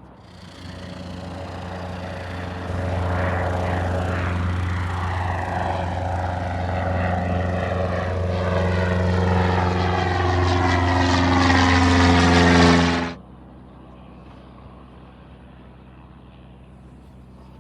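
Propeller airplane's engine running, growing louder as the plane comes closer, a steady low hum under a hiss that sweeps up and down in pitch. The sound cuts off suddenly about thirteen seconds in.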